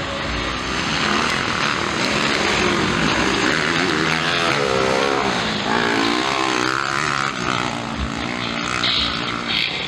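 Several motocross bikes' engines racing on a dirt track, the pitch rising and falling as the riders rev, shift and back off through the corners.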